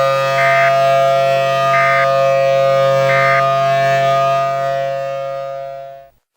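Emergency Alert System end-of-message data tones: three short digital bursts about a second and a half apart, marking the end of the alert. They play over a loud, steady multi-tone drone that cuts off suddenly about six seconds in.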